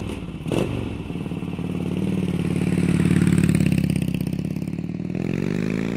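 Motorcycle engine starting after a couple of sharp clicks, then running with a quick pulsing beat that swells and eases. Near the end it revs up, its pitch rising.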